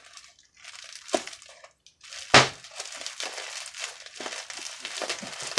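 Plastic packaging rustling and crinkling as it is handled and cut open with scissors, with one sharp, loud snap a little over two seconds in.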